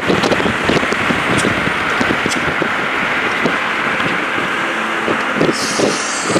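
Steady road and wind noise of a moving car, heard from the car, with a brief hiss near the end.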